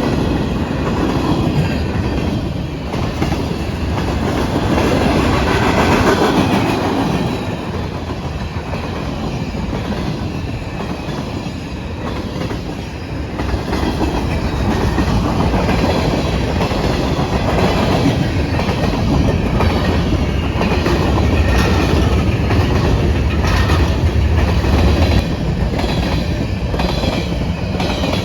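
Freight train cars rolling past steadily, their wheels clacking rhythmically over rail joints.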